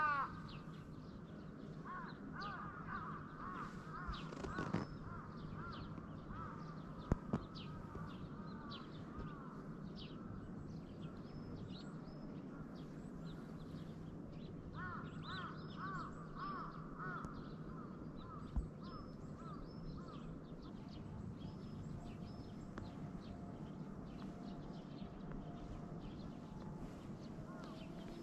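Crows cawing in two runs of repeated calls, one a couple of seconds in and another about halfway through, over a faint steady outdoor background. A sharp click or two falls between them.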